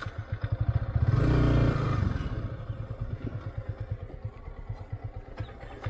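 Yamaha R15 V3's single-cylinder engine running at low speed with a steady pulsing beat. Its revs rise briefly about a second in, then settle back as the bike rolls slowly through a turn.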